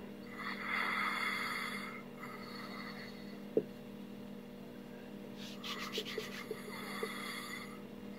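Faint, noisy breathing of a sleeping man: two long breaths about four seconds apart, with a few small clicks between them, over a steady electrical hum.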